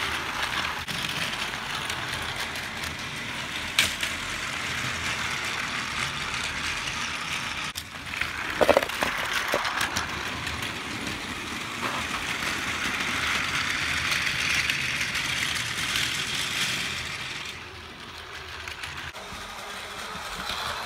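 Battery-powered Plarail toy train running on plastic track: the small motor and gearbox whirring steadily while the wheels rattle over the track joints. About nine seconds in there is a short clatter of knocks where the train sideswipes something beside the track, and the whirr fades briefly near the end before coming back.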